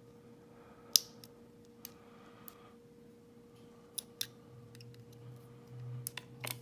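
A small lock pick clicking and scraping inside a padlock's keyway while it is being picked: scattered small metallic clicks, the loudest about a second in.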